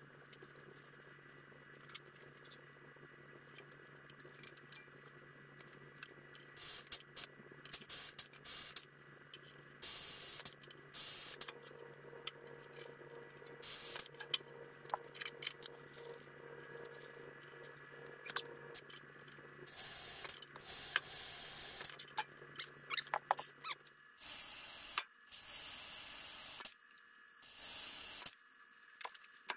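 Repeated short bursts of compressed-air hiss from a pneumatic riveting tool setting aluminium rivets in an RV-10 rudder's counterbalance rib, with small clicks between bursts. The bursts come more often in the second half.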